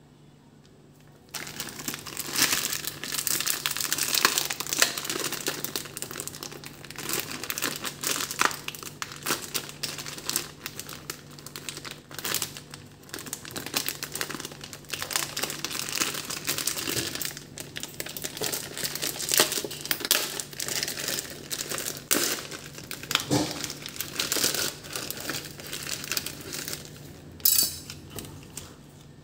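Clear plastic wrapper crinkling and crackling as it is torn open and pulled off a plastic tray, starting about a second in. There is a brief louder rustle near the end.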